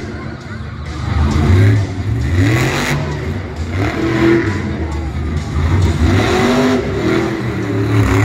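Monster truck engine revving hard, its pitch swinging up and down over and over as the throttle is blipped and held.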